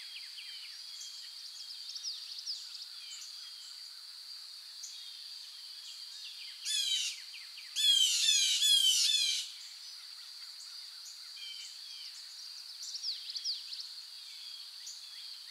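Birds singing and chirping over a steady high insect drone. One bird sings loudly, a quick run of repeated down-slurred notes, about seven to nine and a half seconds in.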